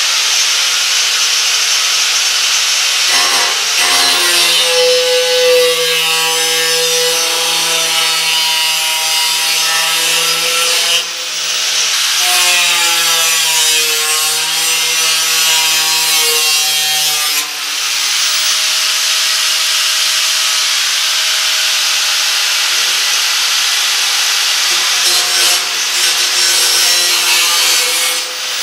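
Angle grinder with a new cutoff wheel slicing through the steel bars and sheet metal of a 1933-34 Ford commercial grille shell: a continuous loud hissing cut with a ringing whine that rises and falls in pitch as the wheel bites into the metal. The cut eases off briefly twice, about 11 and 17 seconds in.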